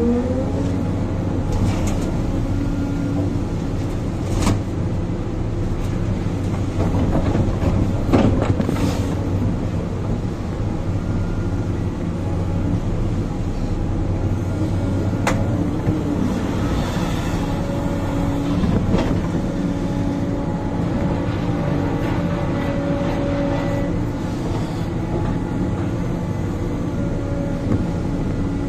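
Sumitomo 490 excavator's diesel engine and hydraulics running under load, heard from inside the cab as it digs, swings and loads soil, with a steady drone whose pitch shifts with the work. A few sharp knocks come through, about four, eight and fifteen seconds in.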